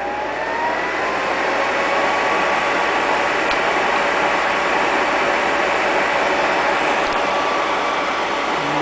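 1966 Lady Sunbeam bonnet hair dryer's fan motor winding up to speed with a rising whine that levels off a second or two in. It then runs steadily, a motor whine over a rush of blown air.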